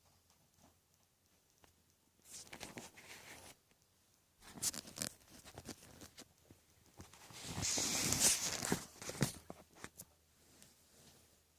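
Rustling and handling noise in irregular scraping, crackling bursts, the loudest a longer swell about eight seconds in.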